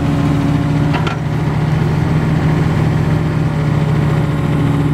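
Bobcat 325 mini excavator's diesel engine running at a steady speed while the operator works the boom and arm.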